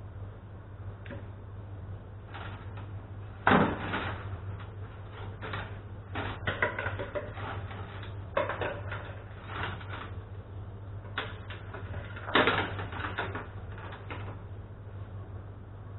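Metal wire clips of a homemade fishing stringer clicking and rattling against each other as the bundle and its line are handled. There are two louder clatters, a few seconds in and about three-quarters of the way through, over a steady low hum.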